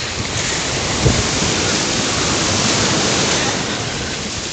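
Small sea waves breaking and washing into the shallows, with wind buffeting the microphone. A brief thump about a second in.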